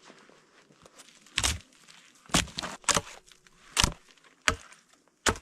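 A blade chopping into wood: six sharp strikes at uneven spacing, roughly one a second.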